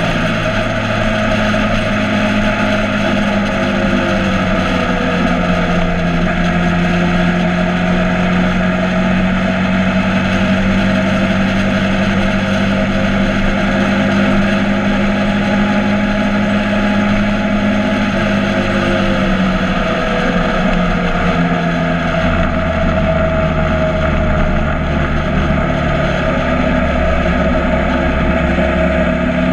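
Motorcycle engine running under way, its pitch drifting slowly up and down with speed and shifting about twenty seconds in, over a steady rush of wind and road noise.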